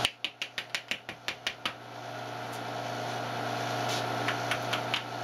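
A quick run of sharp crackling pops, about a dozen in the first second and a half, from steel wire at forge-welding heat throwing sparks. A few more pops come near the end over a low steady hum.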